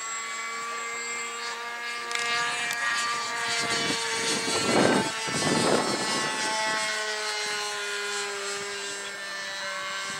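Radio-controlled model airplane's motor and propeller droning steadily as it flies overhead, the pitch drifting slightly. A loud rushing noise swells and fades about four to six seconds in.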